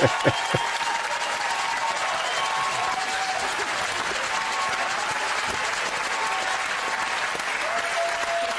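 Studio audience applauding steadily, heard through the TV clip's audio; a man's laughter trails off in the first half second.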